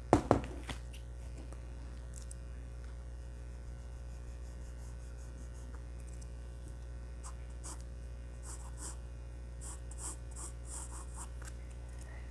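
A knock right at the start as the drawing board is handled, then in the second half short, faint scratching strokes of an HB graphite pencil on drawing paper, over a steady low hum.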